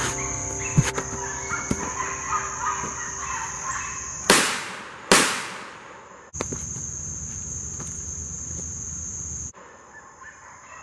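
Two .38 Special revolver shots, a little under a second apart, each trailing off for about a second, over a steady high drone of insects.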